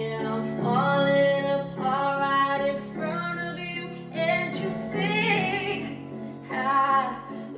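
A woman singing wordless held notes and runs in several phrases, over sustained acoustic guitar chords.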